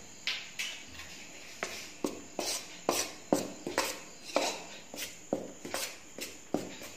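Metal spoon scraping and tapping against a stainless steel bowl while stirring flour into yogurt and milk, in short strokes about two or three a second.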